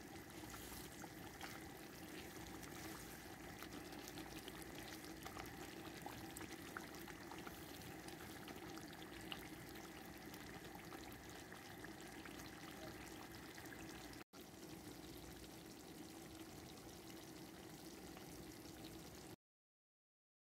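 Thick curry sauce of chicken tikka masala simmering in a pan, bubbling faintly with many small pops over a steady low hum. It cuts off suddenly near the end.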